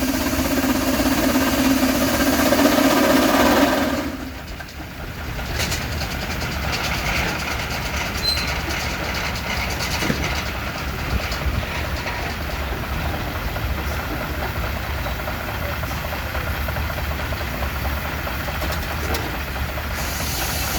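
A steam traction engine's whistle blowing one long steady note that cuts off about four seconds in, followed by the steady low running of the steam engines with scattered light clicks.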